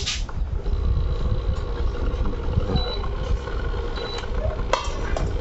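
Repaired Prestige induction cooktop running just after being switched on: a steady low hum, with its cooling fan running. A few faint, short high beeps, and a knock near the end as a steel pan of water is set on the glass top.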